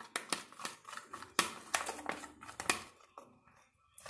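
Shampoo-and-glue slime being stirred in a small pot as the activator makes it thicken: a run of sharp, sticky clicks and pops.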